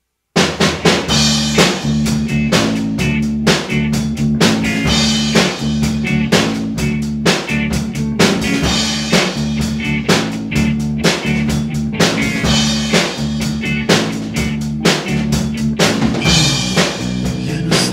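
A rock band's recorded song begins abruptly about half a second in: a drum kit playing a steady beat with snare and bass drum over a low bass line.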